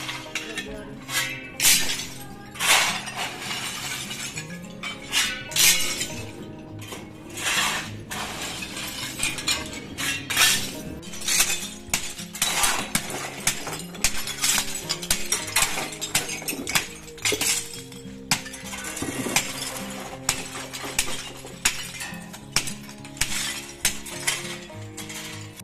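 Broken ceramic tile and brick shards clinking and clattering in irregular bursts as they are shifted and spread by hand, over background music.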